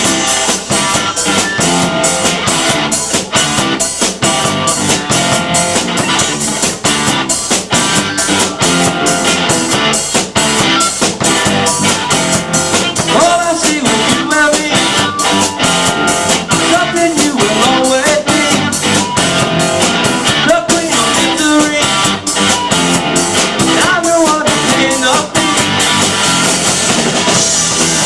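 Rock band playing live: a drum kit keeps a steady, driving beat under guitar, loud and without a break.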